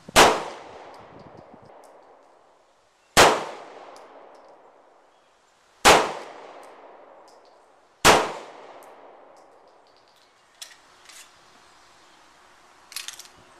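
Four 9mm pistol shots from a Beretta 92FS, spaced about two to three seconds apart, each followed by about a second of echo dying away. Near the end come a few light clicks as the pistol is handled.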